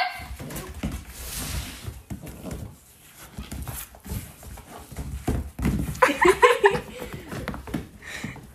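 A lamb and a puppy scampering around on a hardwood floor and rug: quick, irregular patter and knocks of hooves and paws. There is a sharp knock right at the start and a short pitched animal call about six seconds in.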